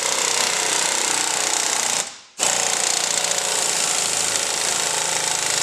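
3/8-inch impact wrench hammering on a tie-rod end nut in two long runs, with a short break about two seconds in. It is driving the nut home while a jack presses up on the worn tie-rod end.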